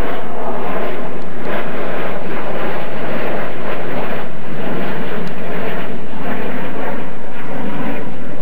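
Two F-4E Phantom II jets' General Electric J79 turbojets, loud and steady, as the pair passes low in formation on a go-around.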